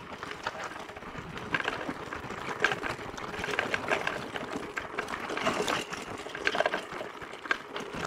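Mountain bike rolling over a rough forest track: a continuous rumble of tyres on dirt with many irregular rattling clicks.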